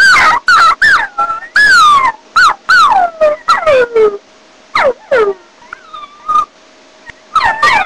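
A person imitating a puppy: a quick run of high whimpers and yelps, each sliding down in pitch, about a dozen in a row with a short pause a little past the middle.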